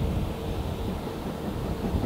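Low rumble of a GWR 4200-class 2-8-0 tank engine working in the distance, mixed with wind buffeting the microphone.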